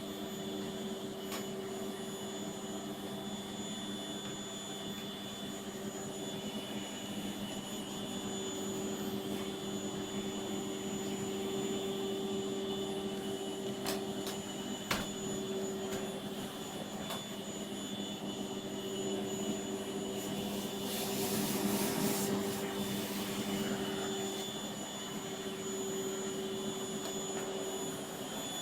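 Vacuum cleaner running steadily: a constant motor hum under an airy hiss. A few faint clicks come midway, and the hiss briefly swells about two-thirds of the way through.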